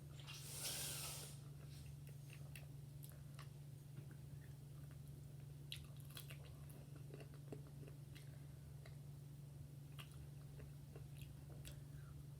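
Close, faint chewing and biting of fried chicken: scattered small wet mouth clicks and crunches over a steady low hum, with a short hiss in the first second.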